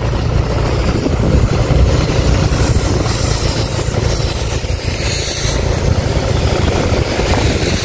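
An engine running steadily, a loud low rumble, with a rushing noise over it.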